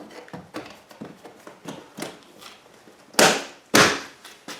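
Plastic door trim on a 2006 Chevrolet/GMC pickup being handled and pressed back into place: a run of light clicks and knocks, then two loud knocks about three seconds in, half a second apart.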